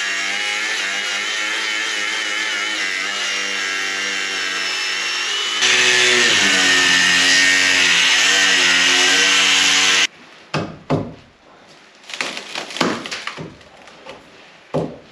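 Cordless angle grinder cutting through a fiberglass boat transom, a steady whine that grows louder and changes pitch partway through, then cuts off suddenly about ten seconds in. Irregular knocks and scrapes follow as the cut panel is worked loose with a hand tool.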